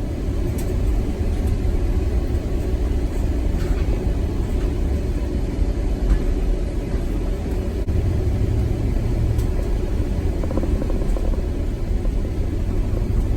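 A vehicle driving: steady low road and engine rumble.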